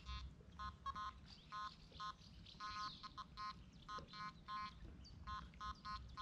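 Metal detector giving short, buzzy beeps, about two to three a second at irregular intervals, as it is swept over the water. Faint bird chirps come in now and then.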